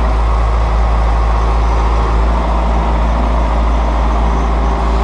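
Tractor engine running steadily with a heavy low rumble, drawing the seeding rig towards the field.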